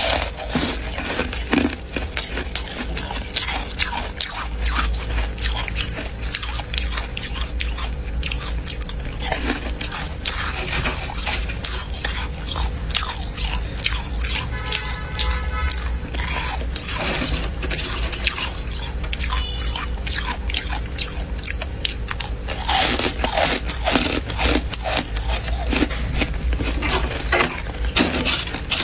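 Close-up crunching of freezer frost being bitten and chewed: dense, irregular crisp crunches under a low steady hum. Near the end a spoon scrapes into the packed frost.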